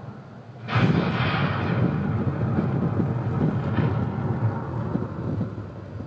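A thunderclap breaks suddenly about a second in and runs into a long, low rolling rumble that slowly fades.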